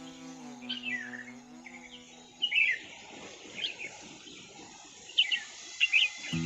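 Bulbuls chirping: short, high calls repeated several times, the loudest about two and a half seconds in. Background music plays under the calls for the first two and a half seconds, then stops.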